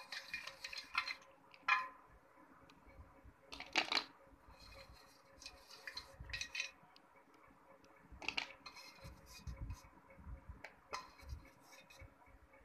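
Wet slate pencil pieces being stirred by hand in a steel bowl of milky water: irregular clinks and knocks against the metal bowl, with brief sloshing of water.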